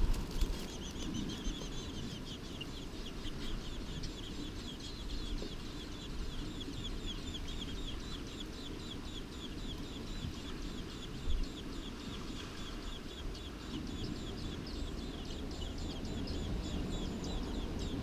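American robin nestlings begging at the nest, a rapid run of high-pitched peeps, several a second, while the parent feeds them. A brief flutter of wings opens it as the adult flies in to the nest.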